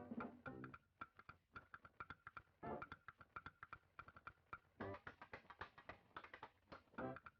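Quiet background music made of short repeated notes.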